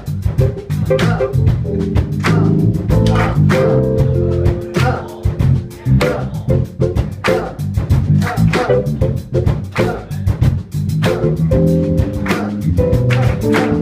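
Live funk band playing: keyboard, electric bass and guitar over a drum kit keeping a steady beat.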